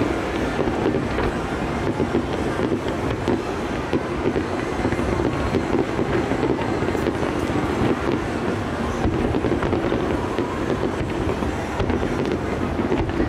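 Fireworks going off in a dense, continuous barrage, their bangs and crackles merging into a steady rumble at a distance.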